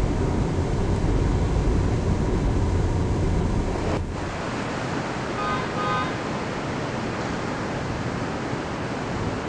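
Steady outdoor city noise of traffic and wind. About four seconds in it changes abruptly to a lighter hiss, with two short pitched beeps soon after.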